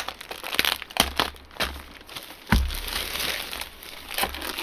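Clear plastic bag crinkling and rustling as it is handled and opened by hand, in irregular bursts with sharp crackles.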